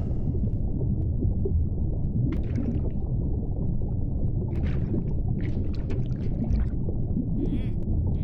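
Homemade foley sound effects: a steady low rumble with several short, hissing bursts laid over it, sounding like water and sea movement.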